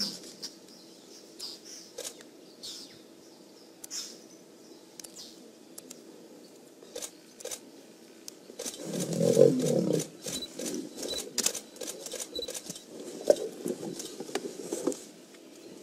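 Lion growling loudly for about a second and a half as a Cape buffalo butts it where it lies, followed by softer growls and scuffling in dry dirt.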